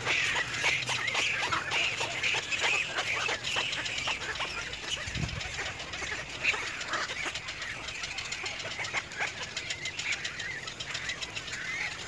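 Outdoor ambience of birds chirping and clicking continuously, with one brief low thump about five seconds in.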